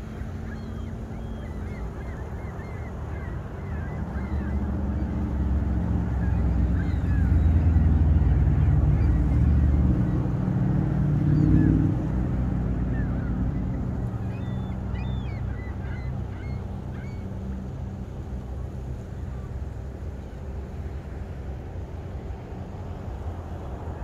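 Gulls calling with short, scattered cries, over a low engine-like rumble that builds a few seconds in, is loudest around the middle and then fades, like a vehicle passing.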